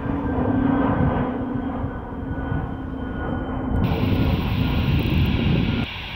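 Airbus A320neo jet engines at climb power as the airliner passes overhead: a deep rumble with a steady low hum. Near the end it drops abruptly to a fainter, steady hiss.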